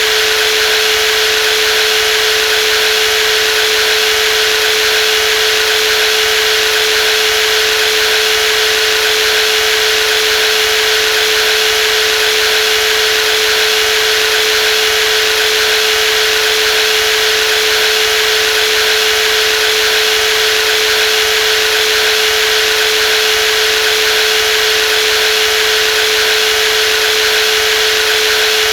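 Brushless jigsaw running at a steady speed, a constant motor whine over an even hiss that never changes.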